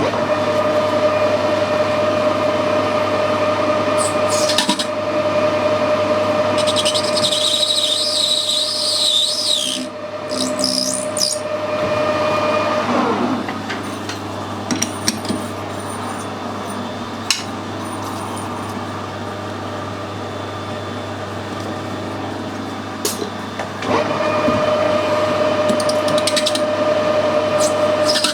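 Metal lathe running with a steady whine while the end of a part is cleaned up and chamfered, with a high wavering squeal of the cut for a few seconds. The spindle winds down about halfway through and starts up again near the end.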